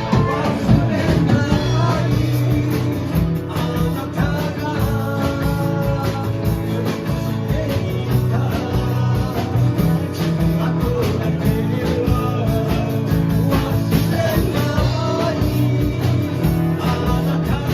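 Rock band playing live: electric guitar, bass and drums, with a singer's voice coming in and out over them.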